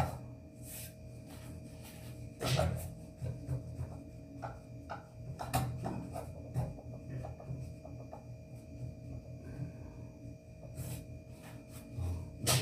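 Khubz flatbread being pressed and turned by hand in a dry metal pan on a gas stove: soft rubbing of the bread against the pan, with a few light knocks of the pan on the burner grate, over a faint steady hum.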